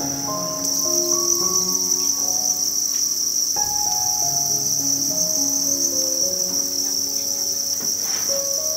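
A dense chorus of many crickets chirping: one steady, high-pitched trill from a crowd of insects, under light background music with a stepping melody.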